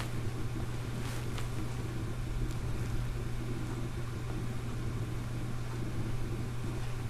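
A steady low hum over a hiss, with a few faint rustles and taps as fabric cushions are handled about a second in and again a little later.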